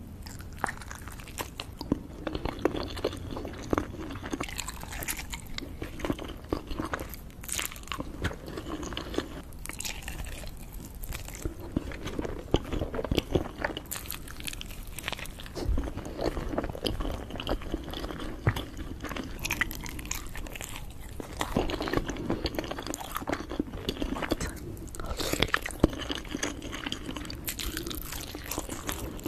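Close-miked eating sounds of a person biting into and chewing a giant egg's white and yolk: repeated soft bites and many small irregular mouth clicks.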